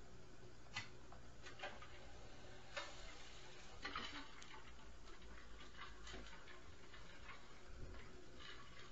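Faint, scattered knocks and clicks from the upstairs neighbours' apartment, heard through the ceiling: about half a dozen sharp, irregularly spaced impacts over a low steady hum.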